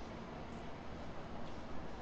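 Steady outdoor city ambience: an even low rumble and hiss, with no single sound standing out.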